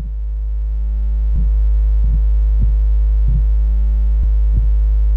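Synthesizer film score: a deep steady drone swells in over the first second and a half, with soft low pulses about every half second to second.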